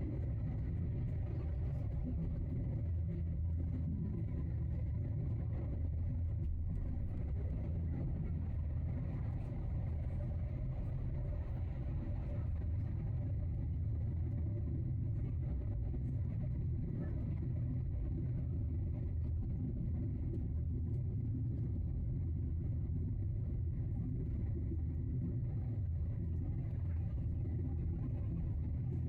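Steady low vehicle rumble, even in level with no changes.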